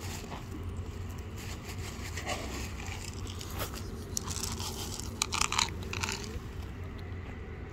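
Cats crunching dry kibble: a run of crisp crunches through the middle, the loudest a little past five seconds in.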